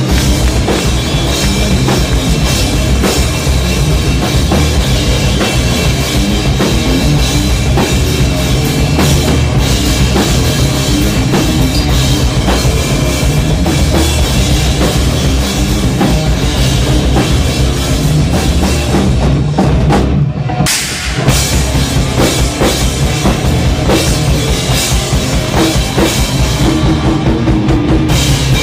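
Loud heavy rock played by a live band, with a driving drum kit. The music thins out for a moment about two-thirds of the way through, then crashes back in.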